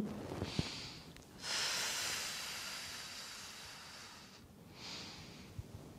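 A woman's breathing, audible as airy hissing: a short breath about half a second in, then a long breath that starts about a second and a half in and fades over about three seconds, then another short one near the end. The breaths pace a slow yoga twist.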